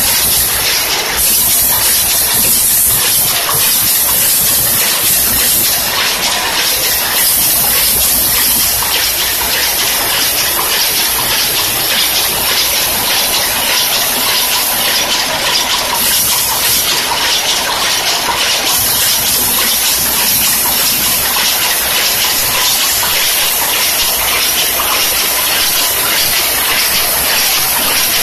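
Soft-pack cigarette packing machine running at full production speed: a loud, steady, very fast mechanical clatter with a hiss.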